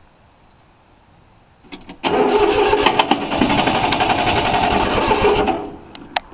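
Starter motor cranking a 3-cylinder Yanmar diesel for about three and a half seconds with a rapid even rhythm, after a couple of clicks, then stopping without the engine catching: the fuel lines have not been bled, so air in the fuel keeps it from firing.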